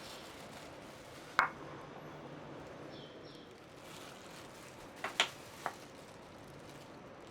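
A sharp metallic clink, then three quick clinks a few seconds later, like a utensil knocking against a pan, over a faint steady hiss. A few faint short chirps come and go.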